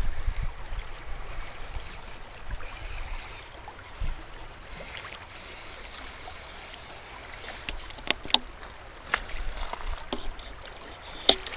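Small waves lapping against shoreline rocks, with a low rumble that is strongest at the start and a few sharp clicks in the second half.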